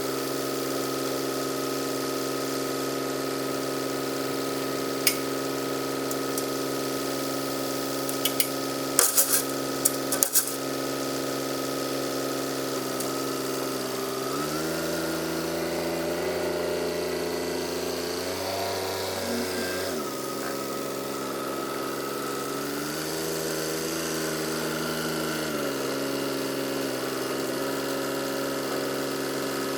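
An engine running steadily, its pitch dipping lower and coming back up twice as if taking a load, with a few sharp metallic clinks about a third of the way in.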